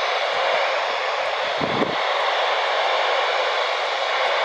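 Weather radio receiver putting out steady static hiss, with a brief soft low bump about two seconds in.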